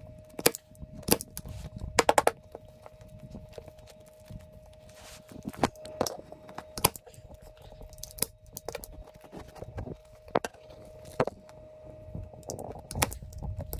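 Manual staple gun snapping staples into the seat base: sharp single snaps at irregular intervals, with a quick run of clicks about two seconds in.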